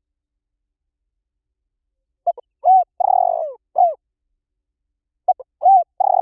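Spotted dove cooing: a phrase of two short clipped notes, a longer wavering coo and a closing note, heard twice about three seconds apart with dead silence between. It is a recorded call played as a lure to draw wild doves in.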